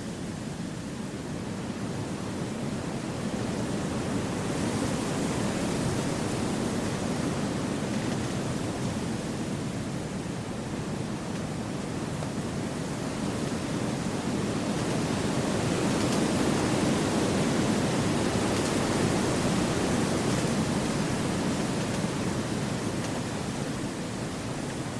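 Wind blowing through forest trees, a steady rushing that slowly swells and eases in long gusts.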